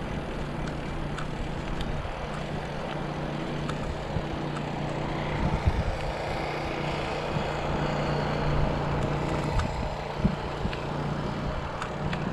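Bicycle rolling along an asphalt path: a steady rush of tyre noise and wind on the microphone, with a low hum and a few small clicks and rattles.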